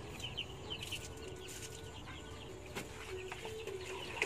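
Chickens making short, high chirping calls, several a second, with water splashing as a chicken is washed, and a sharp knock near the end.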